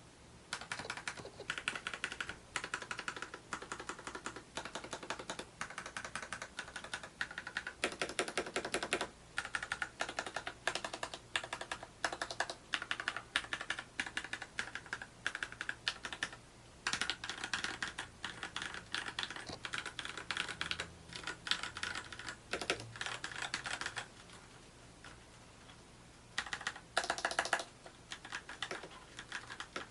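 Typing on a mechanical keyboard with lubed Gateron Clear linear switches (35 g): a steady clatter of keystrokes, with fast flurries about eight seconds in and near the end, and a pause of about two seconds late on.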